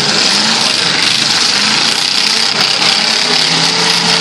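Demolition derby cars' engines running together in a loud, steady din.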